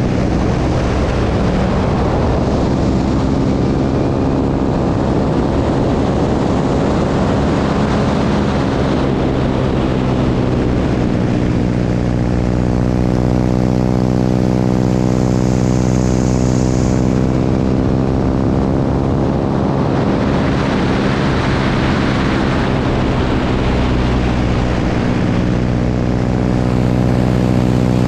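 Propeller airplane's piston engine running steadily in flight, its drone holding an even pitch, over the rush of the airstream.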